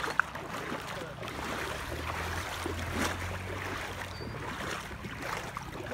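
Shallow sea water washing and lapping at the shoreline around a beached kayak, over a steady low rumble.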